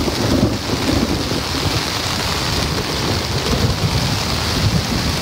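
Hard, steady rain pouring down in a thunderstorm, with thunder rumbling low underneath throughout.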